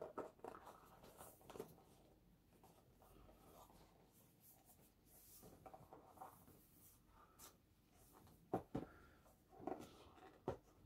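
Faint rubbing and scraping of cardboard packaging being handled, a box sliding against its sleeve, with a few soft knocks near the end.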